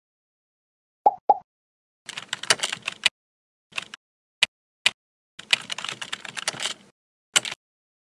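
Computer keyboard typing: two runs of rapid key clatter with a few single keystrokes between them. Two short, pitched pops come about a second in, and a last short click burst near the end.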